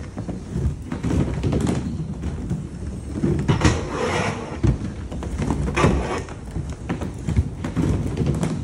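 Skateboard wheels rolling over the wooden ramps of a skate bowl: a steady rumble broken by several sharp knocks of the board on the wood.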